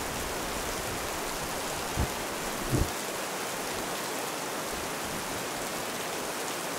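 Steady hiss of heavy rain, with two brief low thumps about two and three seconds in.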